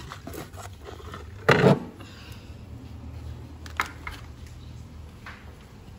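Kitchen items being handled: one loud knock about one and a half seconds in, then two small clicks a little before the four-second mark, over a low steady hum.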